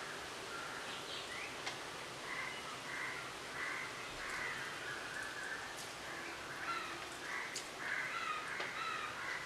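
Faint bird calls, short and repeated many times, coming in irregular runs.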